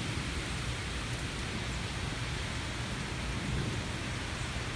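Steady noise of storm wind and rain, with wind rushing through the trees and buffeting the microphone in a low rumble.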